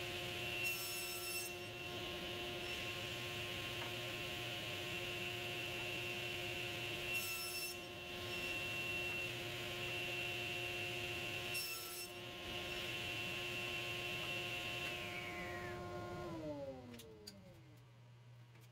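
SawStop table saw running steadily as walnut is cross-cut to length, with three short cuts through the wood about one, seven and twelve seconds in. Near the end the saw is switched off and its pitch falls as the blade spins down.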